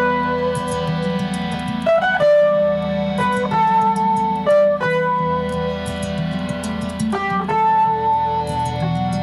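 Slow instrumental guitar playing in an ambient style: single long-held melody notes that change every second or so, some joined by short slides, over a steady low drone.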